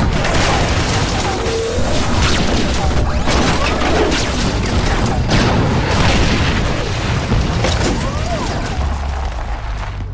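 Film-style battle sound effects: a continuous rumble of booms and explosions with gliding laser-blast zaps, laid over a dramatic music score.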